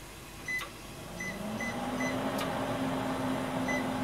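Electric fish grill's control panel beeping four times as its buttons are pressed. From about a second in, its motor or fan starts with a hum that rises in pitch and settles into a steady drone.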